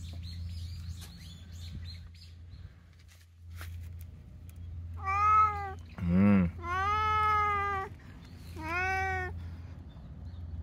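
A cat meowing: about four calls in a row in the second half, the third one long and drawn out, over a steady low hum.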